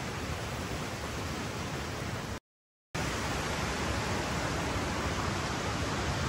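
Steady rush of flowing spring water, broken by a half-second of dead silence about two and a half seconds in.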